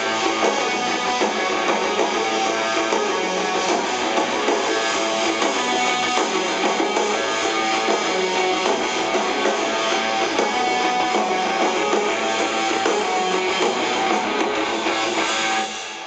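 Live rock band playing a guitar-led song, with strummed electric guitars over the full band; the music cuts off suddenly near the end.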